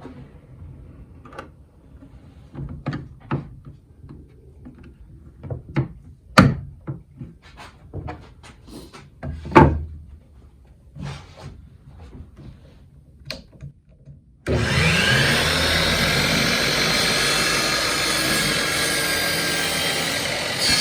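Scattered clicks and knocks as the DeWalt DWS779 miter saw is handled and set up, then about 14 seconds in the saw's motor starts suddenly, rising in pitch as it spins up, and runs steadily for about six seconds while it makes an angle cut in a board.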